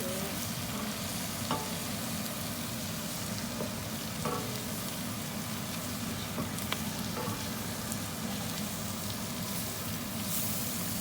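Onions, carrots and other vegetables sizzling steadily in a pot while all-purpose flour is stirred in and cooked to thicken the sauce, with a few light clicks of the stirring utensil against the pot.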